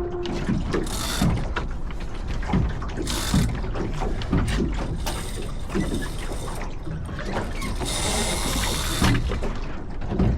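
A Flying Scot sailboat's fittings and lines clicking and knocking in light air, with water lapping at the hull and three short bursts of hiss.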